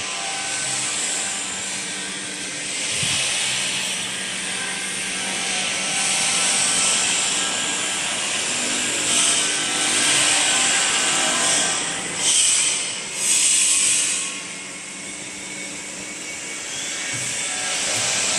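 Steady machinery hum with a hiss over it, swelling and fading slowly, with two short louder surges a little past the middle.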